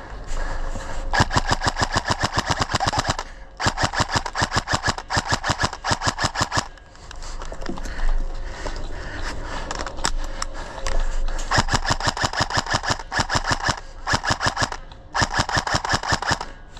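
Airsoft rifle firing on full auto, long strings of rapid shots at roughly ten a second. Four long bursts, with a few scattered single shots between the second and third.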